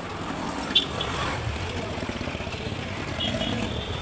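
Background road-traffic noise, with a single sharp click just under a second in.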